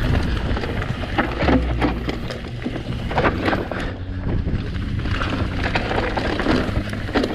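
Mountain bike riding down a dirt and stone forest singletrack: tyres rolling over the ground, with frequent knocks and rattles from the bike over bumps. Wind buffets the chest-mounted action camera's microphone.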